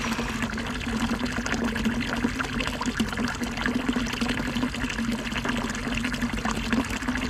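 Spring water running steadily from a roadside fountain spout, a continuous splashing flow.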